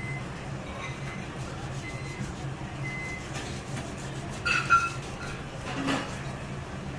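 Steady low machine hum, with a brief high squeak about four and a half seconds in.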